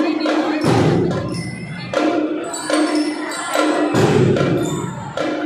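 A drum and lyre corps playing: drums struck in a rhythm with sustained bell-lyre notes between the strokes, and two heavy bass-drum hits, one just under a second in and one about four seconds in.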